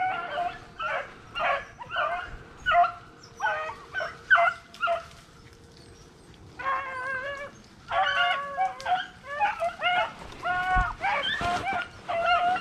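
Rabbit hounds baying as they run a rabbit's trail toward the hunters: a string of short barks, a pause of about a second and a half near the middle, then thicker, overlapping barking from more than one dog.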